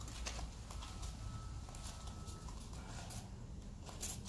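Faint, scattered light taps and handling noises, a few separate clicks over a quiet background.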